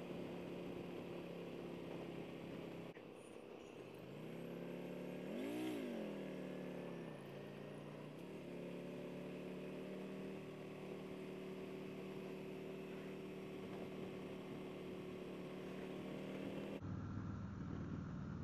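2021 Harley-Davidson Road King Special's Milwaukee-Eight 114 V-twin with Vance & Hines Hi-Output slip-on mufflers, running steadily at cruise. About five seconds in its pitch climbs and falls once as the throttle is opened and rolled off.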